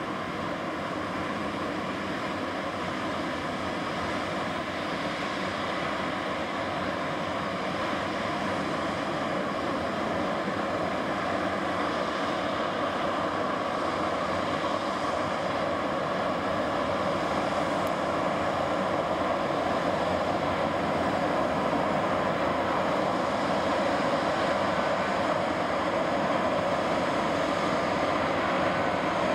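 Boeing 757-200 airliner on final approach, its two turbofan engines giving a steady rumbling roar with a faint whine that grows slowly louder as the aircraft comes nearer.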